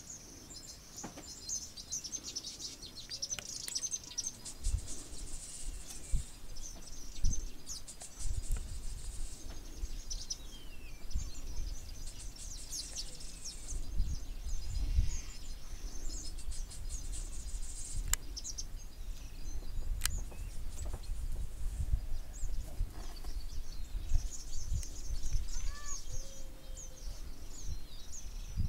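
Many small birds chirping and trilling, with a few falling whistles near the end, over irregular low rumbles.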